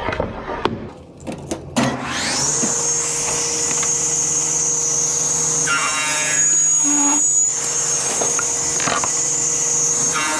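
A few knocks as the workpiece is handled. About two seconds in, a sliding table saw's motor starts with a rising whine as the blade spins up, then runs steadily.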